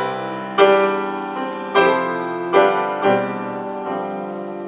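Piano playing slow chords, each struck and left to ring and die away, about four times.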